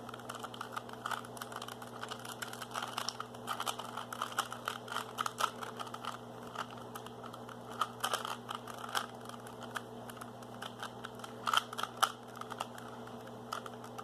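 Plastic Rubik's Cubes being twisted by hand: a quick, irregular run of small clicks and rattles as the layers are turned, over a steady low hum.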